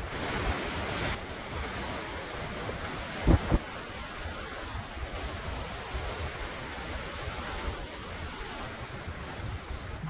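Sea waves washing over a rocky shore with wind gusting on the microphone, a steady rushing noise throughout. Two sharp thumps come close together a little over three seconds in.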